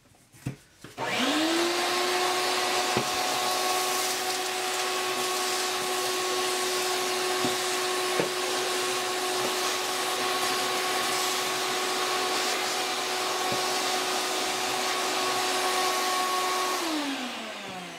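Shop vacuum switched on about a second in, running steadily with a high whine and rushing air, then winding down near the end. A few faint knocks are heard while it runs.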